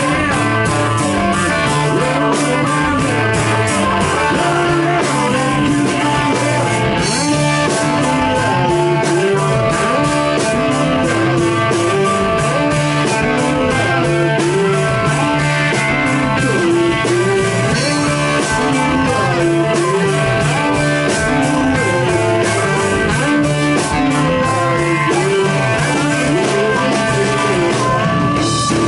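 Live blues-rock band playing an instrumental passage: electric guitar, bass guitar and drum kit, with a harmonica playing long bending notes over them.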